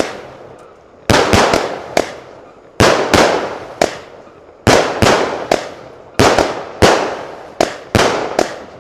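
Allevi 48-shot 20 mm pressed firework cake firing its shells in quick succession: about fifteen sharp aerial bangs, irregularly spaced at one to two a second, each fading out in a long tail.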